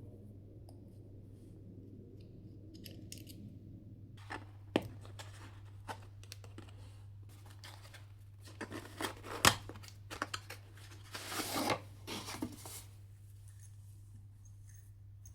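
Handling noises from unpacking a headphone case and cable: a soft rustle for the first few seconds, then scattered clicks and rustles. A sharp click comes about nine and a half seconds in, and a longer ripping sound follows about two seconds later.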